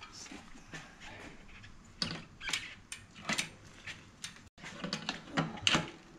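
Bicycle chain clinking and rattling as it is fed by hand onto the rear cog and chain tensioner: irregular light metal clicks, louder and more frequent from about two seconds in.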